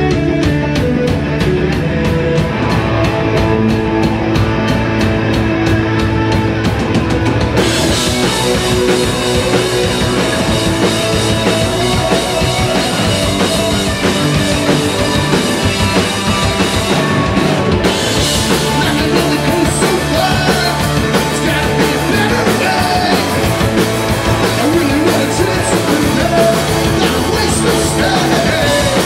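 Punk rock band playing live: distorted electric guitars, bass guitar and a drum kit. The sound turns brighter with the cymbals about eight seconds in, has a short break in the top end just before eighteen seconds, and there is singing near the end.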